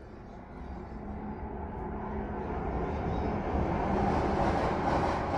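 A passing train, its rumble building steadily to its loudest near the end.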